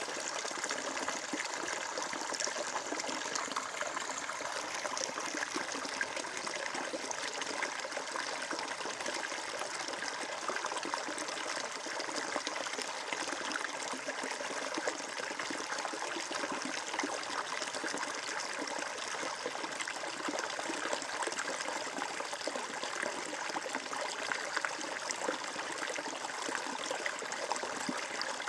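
Water flowing steadily over rocks in a stream, a continuous trickling, splashing rush with a busy, fine-grained texture.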